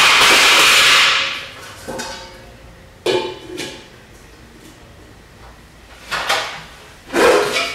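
Metal bowls and plates clattering: a loud jangle of metal dishes being shuffled in a pile for about a second, then several separate knocks, each ringing briefly, as a metal bowl is handled and set on a wooden plinth.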